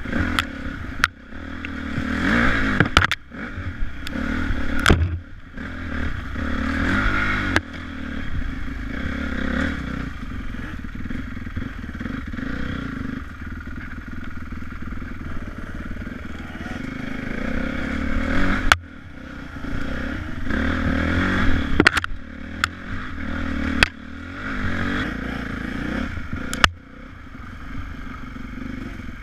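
Trail dirt bike engine ridden over rough singletrack, revving up and dropping back every few seconds. Clatter and several sharp knocks come from the bike over bumps.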